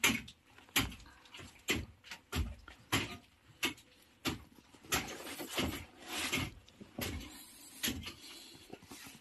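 Irregular knocks and scuffs on rock and gravel, about one or two a second.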